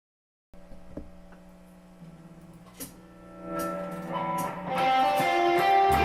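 Electric guitar played through a Crate V50 amplifier. Quiet held notes begin about half a second in, then picked notes build and grow louder over the next few seconds.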